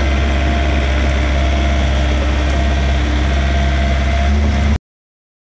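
Diesel engine running steadily with a deep hum; the sound cuts off abruptly near the end.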